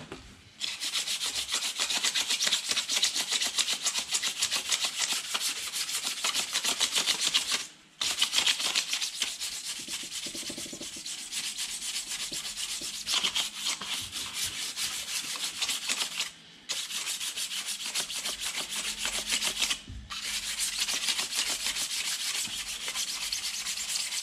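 Sandpaper rubbed by hand in fast back-and-forth strokes on a steel excavator track-adjuster part, smoothing out light, pitted surface rust. It starts about half a second in and comes in four bouts with brief pauses between them.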